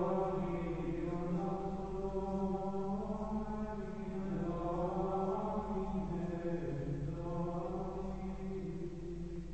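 Carthusian monks singing plainchant in unison, men's voices on a slow, single melodic line with long-held notes that move gently up and down in pitch.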